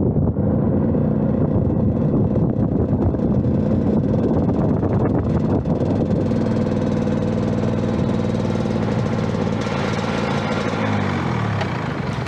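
Rotax-engined motorcycle running in second gear, heard on board with wind noise on the microphone. The engine holds a fairly steady speed, then the revs fall away over the last second or two as it slows.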